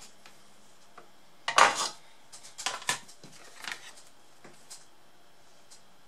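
Clattering knocks and clinks of tools and the laptop motherboard being handled on a workbench. The loudest is about one and a half seconds in, with a cluster of smaller clicks following over the next few seconds.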